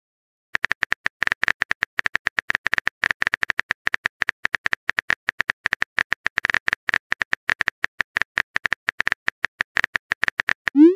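Rapid tapping clicks of a texting app's keyboard sound effect as a message is typed letter by letter. Near the end there is a short rising swoosh as the message is sent.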